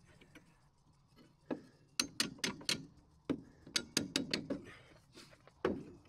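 Hammer striking nails into metal joist hangers on wooden floor joists: about a dozen sharp, irregular taps in quick clusters, beginning about a second and a half in.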